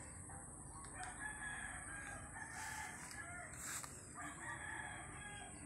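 Rooster crowing faintly, with a steady high-pitched whine underneath.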